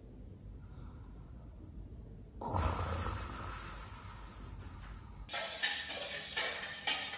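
Faint snoring and breathing of a sleeping person, cut off about two and a half seconds in by a sudden loud rushing noise that runs for about three seconds. About five seconds in, music with a steady beat starts, with light clinks of kitchen dishes.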